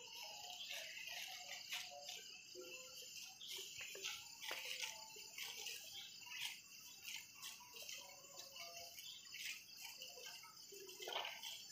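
Faint outdoor ambience: a steady high hiss of insects with many short chirping notes from insects and birds, and scattered brief crackles.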